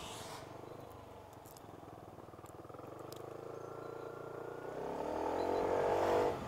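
Piaggio Medley 125 scooter's single-cylinder four-stroke engine running low and quiet as the scooter turns, then accelerating with a rising note and growing louder over the last second and a half.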